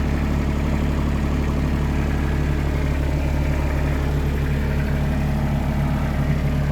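Cat C1.1 three-cylinder diesel engine of a CAT 301.5 mini excavator running steadily at a constant low speed, a deep even hum with no revving.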